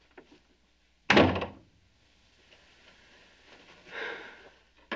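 Wooden office door shutting with a single thud about a second in. A sharp click comes near the end.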